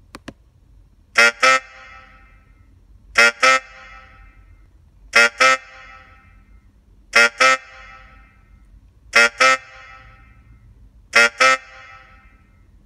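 Horn honking in pairs of two short blasts, the pair repeated about every two seconds, six times, with a short fading echo after each pair.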